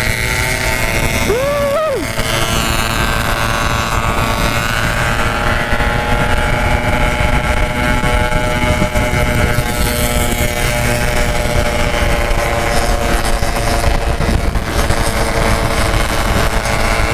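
Yamaha RX-King 135cc two-stroke single-cylinder motorcycles with aftermarket 'packing power' exhausts running steadily at cruising speed in a group, with wind on the microphone.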